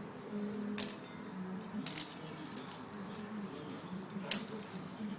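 Three sharp clicks with a light rattle or jingle to them, about a second in, two seconds in and near the end, over a faint, wavering low background hum.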